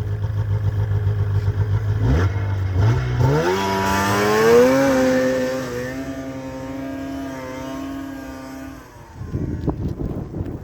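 Arctic Cat ZL500 snowmobile's two-stroke engine idling, then revving up about two seconds in as the sled pulls away. Its note climbs steeply and then holds steady while it fades into the distance, and it drops out near the end, leaving wind noise.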